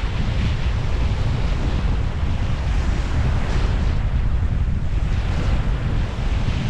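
Strong wind buffeting the microphone with a constant low rumble, over small waves washing on the beach in swells that rise and fall every second or two.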